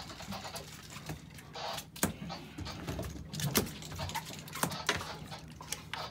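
Irregular clicks, knocks and rattles from a large conventional fishing reel being cranked and the rod being handled while a fish is fought, over a steady low hum.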